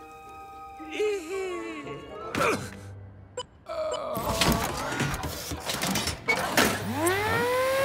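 Film soundtrack: light music, then a thud about two and a half seconds in as the cartoon rooster hits the ground. After a brief hush come clattering mechanical effects and a rising whine as a security box pops up out of the ground.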